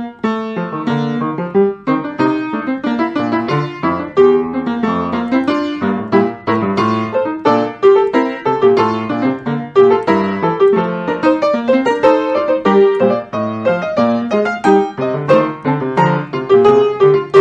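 Solo piano playing: a lively run of many notes a second with chords, loud and continuous.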